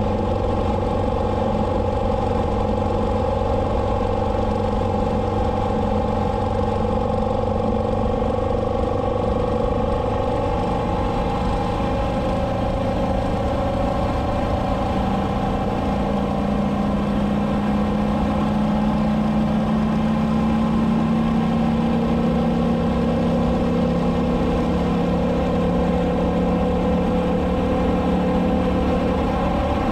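Motorcycle engine running steadily at highway cruising speed, under a constant rush of wind and road noise; the engine note rises slightly about halfway through.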